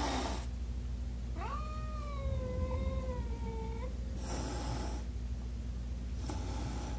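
A cat yowling in one long, wavering, drawn-out call, then two short hisses, in a territorial standoff between two cats through a window screen. A steady low hum runs underneath.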